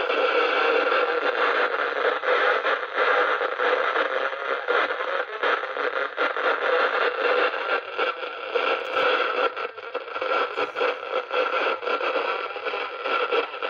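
Audioline CB radio's speaker giving a fluctuating hiss and crackle of band noise on channel 17, with no clear voice coming through. A few sharper clicks come near the end.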